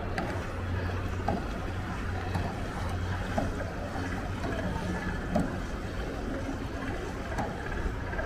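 A steady low hum under a background of distant, indistinct voices, with a few faint scattered knocks.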